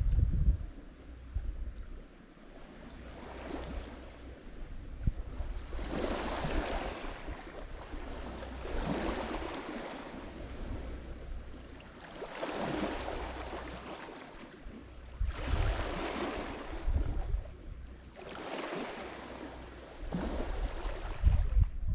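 Lake Michigan waves breaking and washing on the shore, swelling and falling back about every three seconds, with a low rumble at the start and again near the end.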